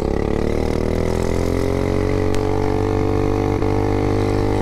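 Mega Moto mini bike's single-cylinder engine, fitted with a stage one exhaust, pulling under throttle. Its pitch rises over the first two seconds, then holds steady at cruising speed.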